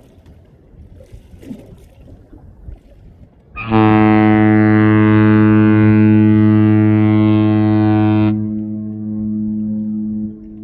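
Cruise ship Allura's horn sounding one long, deep, steady blast that starts about three and a half seconds in and holds for about four and a half seconds. Its higher tones then drop away while the low note carries on, weaker, for about two more seconds before stopping. Wind and water noise come before the blast.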